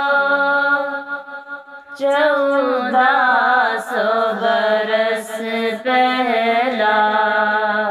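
Young female voice singing an Urdu nazm in long drawn-out, ornamented notes, pausing briefly for breath about two seconds and six seconds in.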